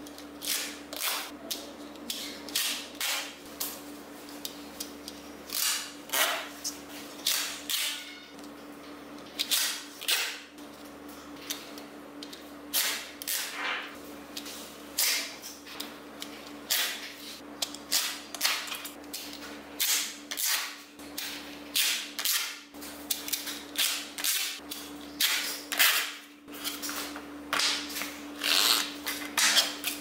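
Small magnetic balls clicking and clacking as rows of them are snapped together and slid into place on a tabletop: irregular sharp clicks, several a second at times.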